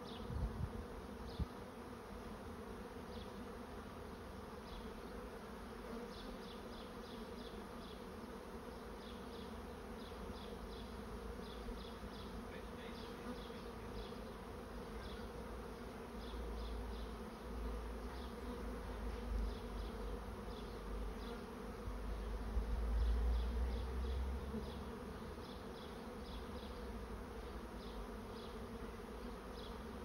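A swarm of honey bees buzzing steadily in the air as it moves into a swarm trap. Repeated short high chirps sound over the hum, and a low rumble swells about halfway through.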